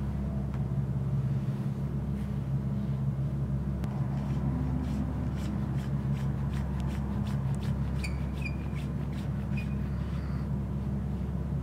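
Clicks and light rattles of a handheld camera gimbal being handled and adjusted, with a steady low hum underneath. Most of the clicks fall in the middle of the stretch.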